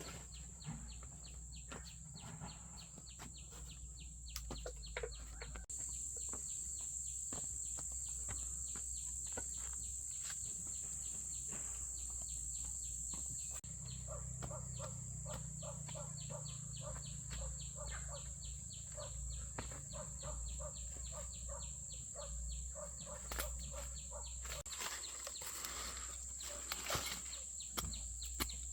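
A steady high-pitched hum with many small scattered clicks and taps over a low rumble.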